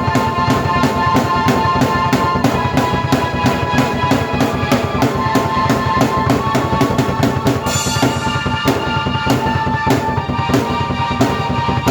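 Drum kit and keyboard playing together in an instrumental piece: a fast, steady beat of kick, snare and cymbals under held keyboard chords. A brighter cymbal wash comes in about eight seconds in.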